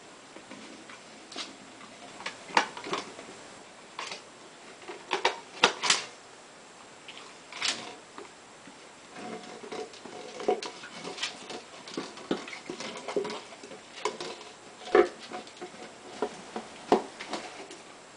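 A peanut butter jar knocking and rolling on a tile floor as a corgi paws and noses it. The clatters come irregularly, with a few sharp, louder knocks.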